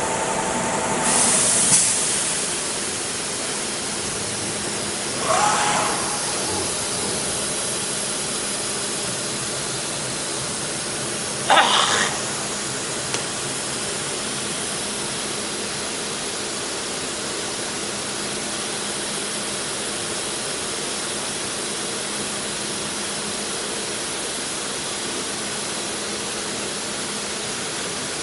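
ATC CNC wood router with a 9 kW HSD spindle, running with a steady hiss and hum. Three short, louder hissing bursts come about 1.5, 5.5 and 12 seconds in, the last the loudest.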